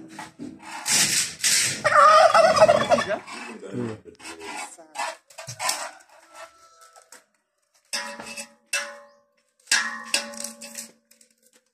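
Domestic tom turkeys gobbling: a loud warbling gobble about two seconds in, then shorter gobbles near eight and ten seconds in.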